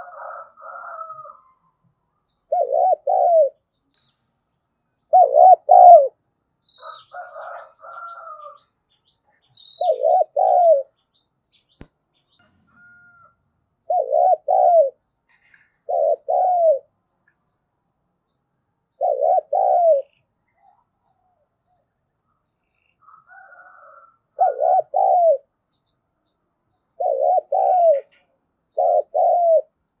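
Spotted dove cooing: short phrases of two or three notes repeated every few seconds, nine in all, with a few fainter, higher calls in between.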